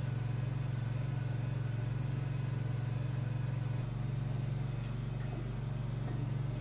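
An engine running steadily with a low, even hum; its note shifts slightly about four seconds in.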